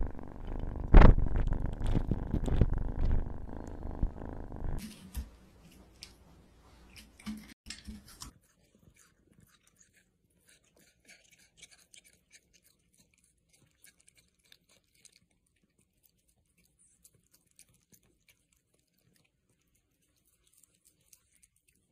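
A kitten purring close into a tiny handheld microphone, a rough low rumble, for about the first five seconds. After that only a few clicks, then near silence with faint scattered ticks.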